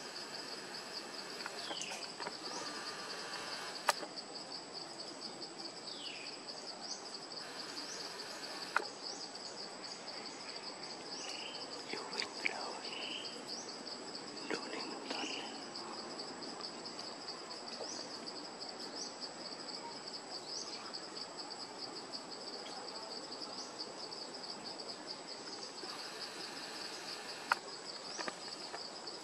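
Steady insect chorus: a fast pulsing trill with a thin, high, unbroken whine above it. Short falling chirps cut in every few seconds, and there are a few sharp clicks, about 4 s in, about 9 s in and near the end.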